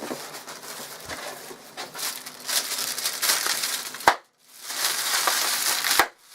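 Paper packing material and a cardboard box crinkling and rustling as they are handled and dug through, with two sharp clicks about four and six seconds in.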